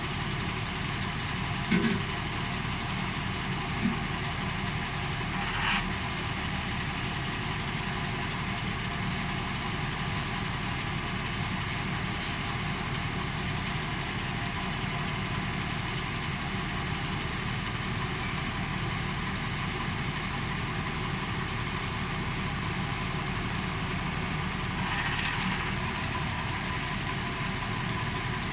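The engine of a towable backhoe running steadily, with a couple of short knocks near the start and a brief rise in level about three-quarters of the way through.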